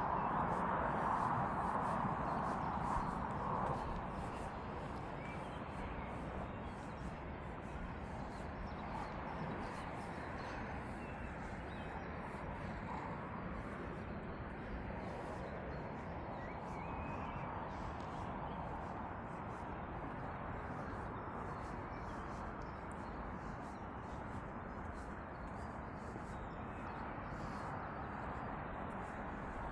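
Outdoor ambience: a steady background rush, louder for the first few seconds, with a few faint bird chirps.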